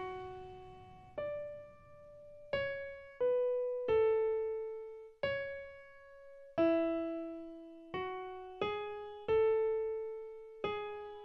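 Background music: a slow solo piano melody of single notes, each struck and left to ring and fade before the next.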